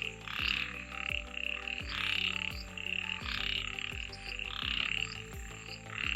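A chorus of many frogs croaking, their calls overlapping in repeated bursts about once or twice a second, set off by heavy rain.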